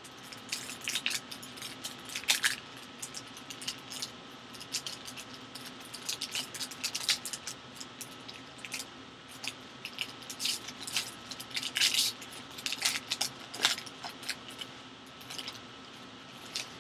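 Foil trading-card pack crinkling and crackling irregularly as gloved hands tear it open and crumple the wrapper.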